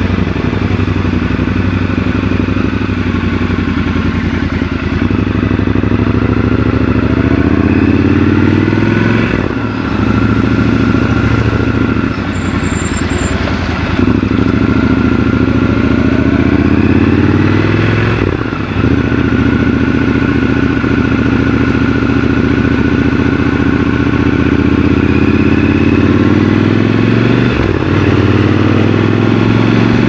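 Triumph Scrambler 1200 XC's 1200 cc parallel-twin engine pulling away and accelerating through the gears. Its pitch climbs and drops back at each gear change several times, then it runs at a fairly steady speed.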